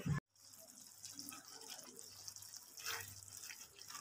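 Faint bubbling and popping of ridge gourd curry cooking in its own juices in a pan on low heat.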